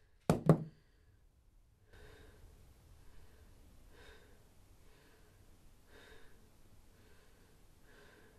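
Two sharp bursts in quick succession just after the start, like a heavy snorting exhale. Soft piano music then fades in, faint notes about once a second.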